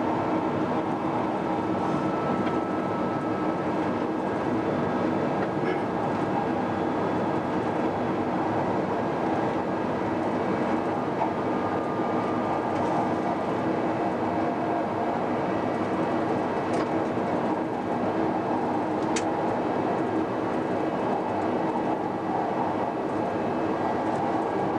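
Queensland Rail electric Tilt Train running along the line, heard from inside the driver's cab: steady running noise with a constant hum.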